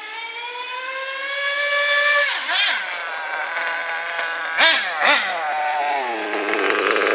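XRAY XB9 1/8-scale nitro buggy's REDS glow engine revving up in a long rising whine, then dipping and climbing again. Two quick sharp throttle blips come about two thirds of the way in, the loudest moments, before the engine settles to a steadier high-pitched idle near the end.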